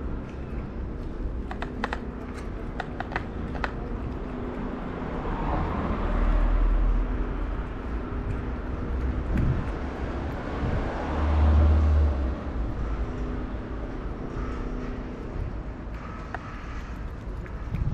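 A cat eating wet food from a plastic dish, with small wet clicks of chewing in the first few seconds, over street ambience with a low rumble of traffic that swells twice.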